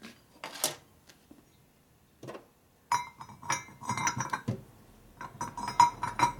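Steel rocker-arm shafts and rocker arms clinking against a Harley shovelhead rocker box as they are handled and fitted, a run of sharp metallic clinks with a short ring starting about three seconds in.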